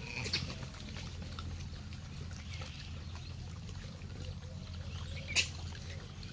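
Gray langurs feeding around a cardboard box: faint scuffling and small clicks over a steady low hum, with one sharp click about five seconds in.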